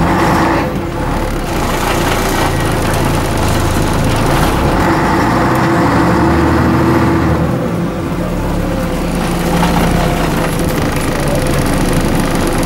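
Scania N113 double-decker bus's 11-litre six-cylinder diesel engine running under way, heard from the upper deck. The engine note drops and changes about eight seconds in.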